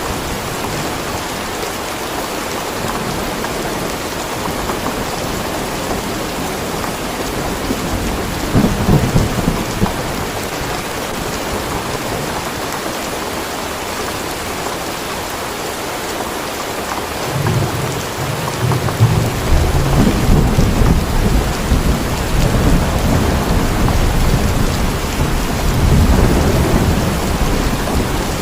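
Steady rain with thunder: a brief low rumble about nine seconds in, then rolling thunder that builds a little past halfway and keeps rumbling.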